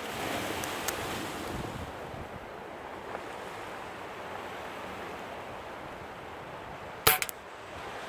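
Surf breaking with wind buffeting the microphone. About seven seconds in comes a single sharp crack, the loudest sound, from a shot of a .22 Webley Hurricane spring-piston air pistol.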